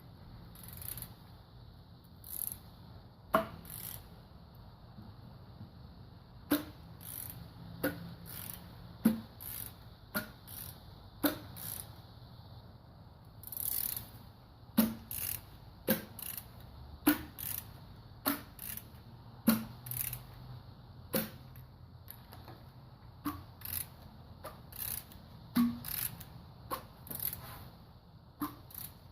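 Ratchet wrench turning a Toyota 1ZZ-FE engine over by hand at the crankshaft, sharp clicks about once a second at uneven intervals, to check that the freshly installed camshafts and timing chain spin freely.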